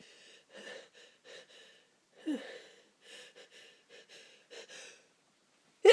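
A person's short, wheezy breaths and catching gasps, about a dozen of them, with a louder voiced gasp falling in pitch about two seconds in: the build-up of a tickling nose before a sneeze, which just bursts out at the very end.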